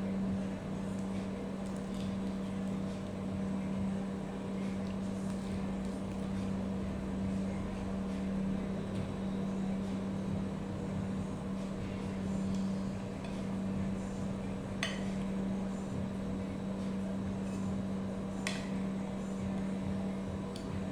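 Steady low machine hum, like a fan or motor running, with two brief sharp clicks or clinks in the second half.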